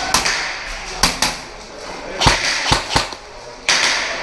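Irregular sharp knocks and clicks, about six in four seconds, some with a dull low thump, and a brief rustling hiss near the end.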